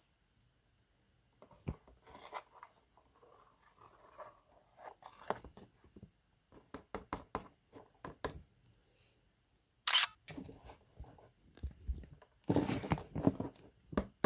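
Toy packaging being handled and opened by hand: scattered crinkles, clicks and taps, with a sharp rustle about ten seconds in and a denser stretch of crinkling near the end.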